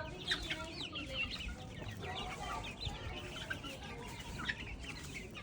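A flock of young chicks peeping: many short, high chirps overlapping continuously.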